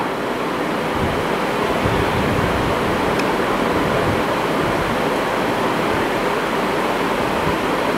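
Steady, even hiss of background noise, with no speech over it.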